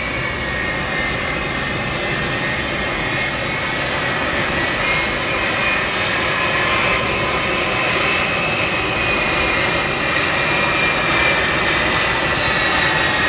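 Boeing C-17 Globemaster III's turbofan engines running as it taxis: a steady jet rush with a high whine that drifts slowly in pitch, growing slightly louder toward the end.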